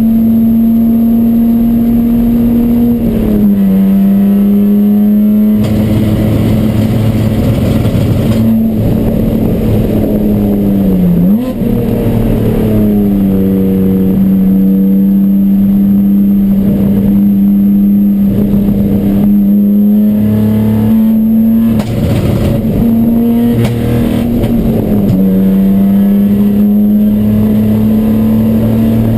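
A ChumpCar endurance race car's engine running hard at steady revs, its pitch stepping down and back up a few times. The engine is misfiring.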